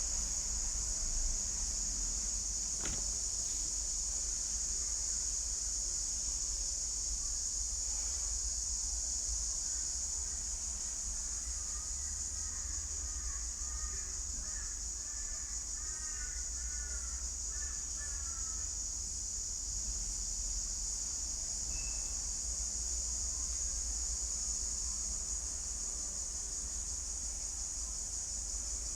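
Outdoor ambience: a steady, high-pitched insect chorus over a low rumble. Around the middle a bird calls in a quick run of short notes, and there is one sharp click near the start.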